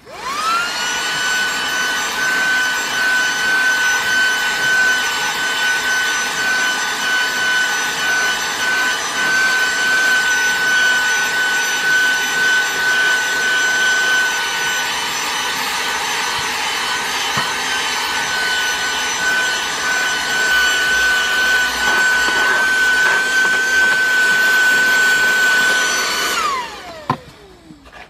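SehenTools 12V 60W handheld car vacuum cleaner (model CVC 108) switched on: its small motor spins up within a second to a steady high whine with a rush of air as it vacuums car floor carpet. Near the end it is switched off and the whine falls away as the motor winds down.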